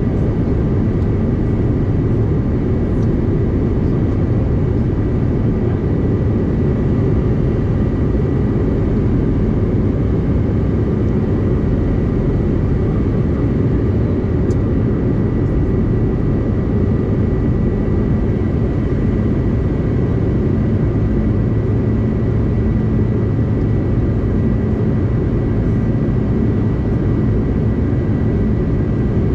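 Steady cabin noise inside a CRJ-900 regional jet in flight. A constant rush of airflow and engine sound from its rear-mounted General Electric CF34 turbofans, with faint steady high tones riding on top.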